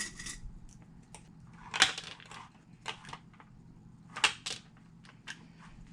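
Sewing clips snapping onto layered strap pieces: about five sharp clicks at uneven intervals, the two loudest about two and four seconds in, with light handling between them.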